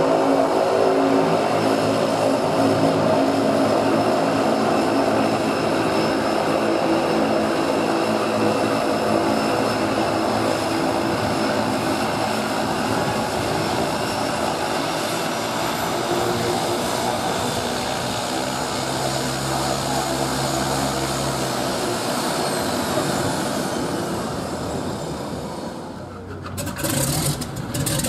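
Cessna Caravan floatplane's Pratt & Whitney PT6A turboprop running steadily as the plane taxis on the water, slowly fading. It cuts off suddenly near the end, where a different, choppier sound begins.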